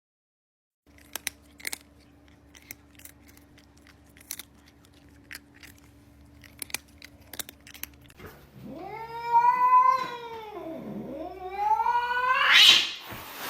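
A cat yowling: two long drawn-out calls that rise and fall in pitch, the second climbing to a loud, high cry near the end. Before them come several seconds of scattered light clicks and taps.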